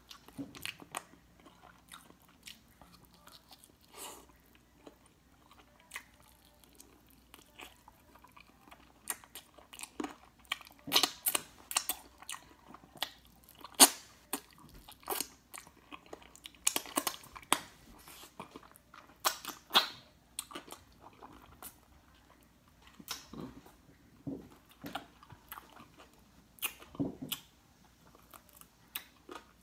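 Close-up chewing and biting into a piece of honey barbecue chicken, with irregular crisp crunches and mouth sounds. The crunches come sparsely at first, then thickest and loudest through the middle.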